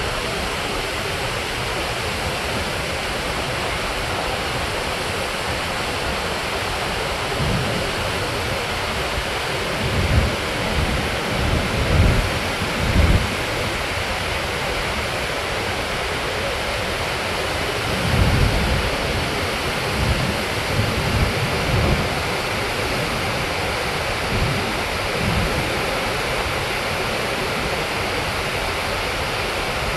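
Steady rush of water from Niagara's Horseshoe Falls, an even, dense noise of a huge volume of water plunging into the mist-filled basin. Low buffeting rumbles of wind on the microphone come and go about ten seconds in and again around eighteen to twenty-two seconds in.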